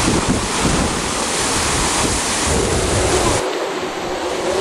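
Wind-driven storm waves breaking in a hurricane sea, with wind buffeting the microphone in a loud, continuous rush; a faint steady whistling tone joins about halfway through.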